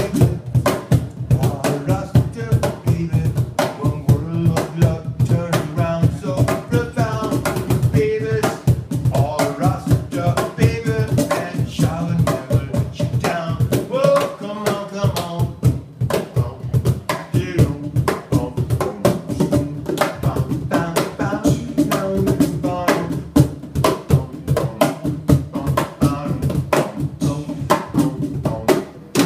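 Live hand percussion: a cajón and a small wooden box drum struck by hand in a fast, steady groove, with a man singing over them.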